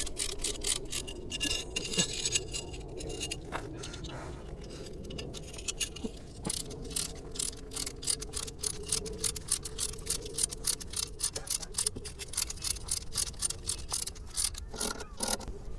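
Ratcheting jack wrench working the car's jack, clicking several times a second as it is worked back and forth. The jack is still rising on its own and has not yet taken the car's weight.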